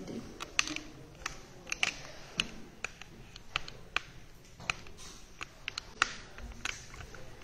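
A run of light, irregular clicks and taps as a phone camera and its stand are handled and repositioned to point down at the table.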